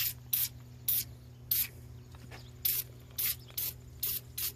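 Aerosol can of foaming engine degreaser sprayed in about ten quick, irregular spurts of hiss, each a fraction of a second long, onto the baler's knotters.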